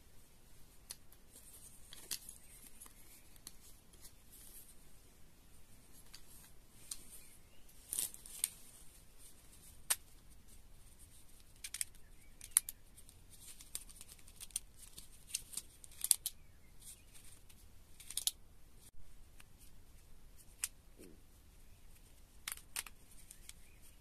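Small black plastic phone tripod and clamp phone holder being handled: irregular sharp plastic clicks and snaps, with light rustling of plastic packaging between them.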